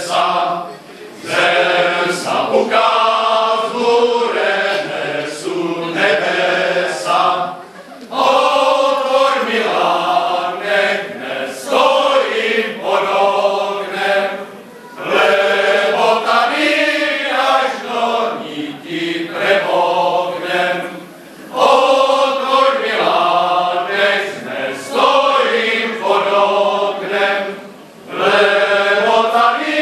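A Moravian men's folk choir singing a folk song unaccompanied in several voices, in long phrases with brief breaths between them about every six or seven seconds.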